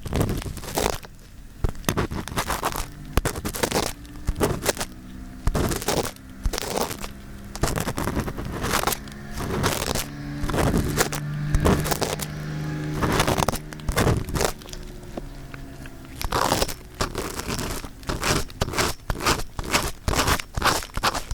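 Earpick scraping and scratching close against a binaural microphone's ear, in irregular strokes with crunchy crackles. A low steady hum runs under it through the middle seconds.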